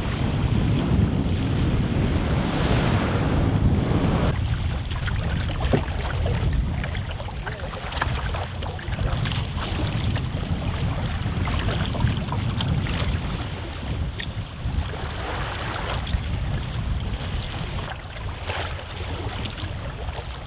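Wind buffeting the microphone and choppy loch water lapping and splashing around a paddled canoe. The heavy low wind rumble drops away suddenly about four seconds in, leaving the water sounds with small scattered splashes.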